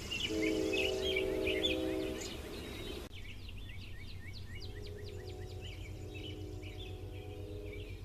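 Distant CSX locomotive air horn sounding two long blasts, each a chord of several notes at once, the second fainter and longer. Birds chirp throughout.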